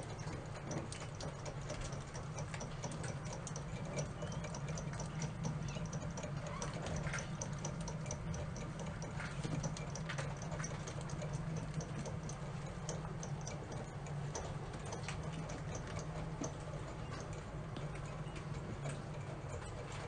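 Steady low hum with rapid, light ticking and clicking over it throughout.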